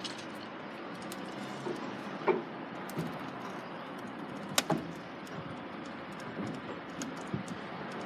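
Steady outdoor background noise at a railway level crossing while the barriers come down, with a few light clicks and knocks.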